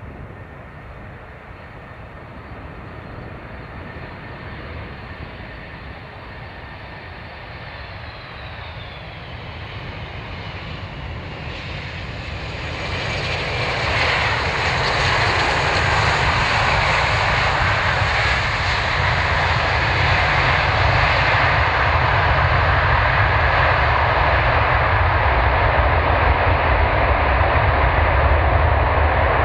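Boeing 747-400 four-engine jetliner landing. The engine whine grows louder as it approaches, with a falling whine about eight seconds in. It touches down about fourteen seconds in, and the engines then run loud and steady through the landing rollout.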